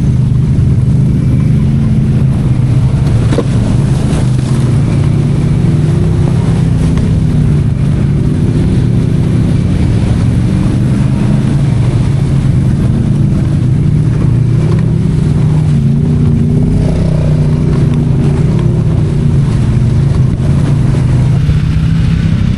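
ATV engine running steadily at low trail speed, its pitch rising and falling a little as the quad picks its way over a rocky trail.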